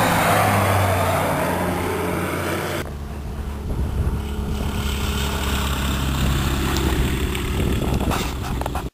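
Aerotrek light sport aircraft's Rotax 912 engine and propeller droning steadily as the plane passes low. About three seconds in the sound changes abruptly to a quieter, lower engine hum with a low rumble under it, and cuts off suddenly at the end.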